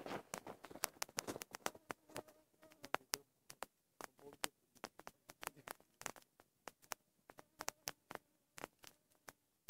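Wood campfire crackling, with sharp irregular pops several times a second.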